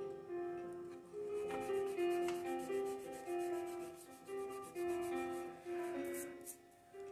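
Background music, a melody of single held notes, with a faint rasp of a hand rubbing across a sheet of paper, wiping off a light pencil sketch.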